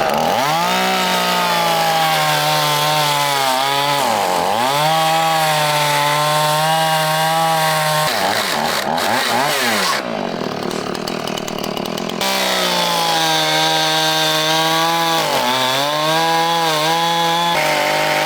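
Two-stroke chainsaw revving up and running at high speed, cutting through a wooden roof joist, its pitch dipping as the chain bites into the wood about 4 s in and again near the end.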